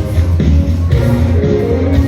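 Instrumental intro of a pop song: backing music with a steady bass line and a regular beat about twice a second.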